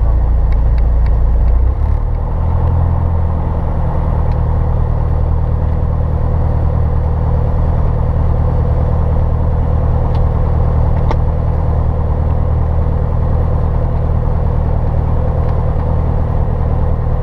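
Piston engine and propeller of a single-engine light airplane running at taxi power, heard as a steady drone from inside the cockpit. The engine note steps up a little about two seconds in.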